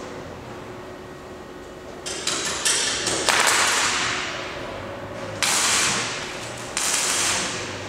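Handheld angle grinder cutting into metal: a few short touches about two seconds in, then three longer cutting passes, each starting suddenly and fading off, the first the loudest.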